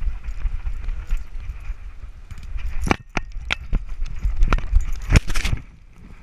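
Harness-mounted camera on a beagle jostling as the dog moves: a steady low rumble of handling and movement noise, with a run of sharp knocks and rattles about halfway through that die away near the end.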